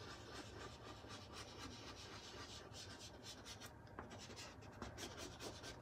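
Faint scratching of a soft pastel stick's edge on Strathmore pastel paper, worked in small quick circles, with a steady low hum underneath.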